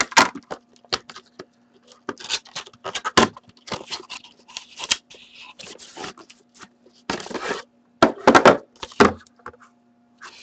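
A cardboard box of 2012-13 Upper Deck The Cup hockey cards being opened by hand: irregular scrapes, rubs and taps of cardboard, loudest about seven to nine seconds in as the box comes off the metal tin inside. A faint steady hum runs underneath.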